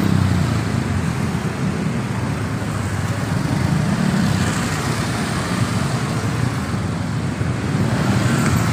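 Road traffic on a busy street: motor scooters and cars passing in a steady, unbroken din.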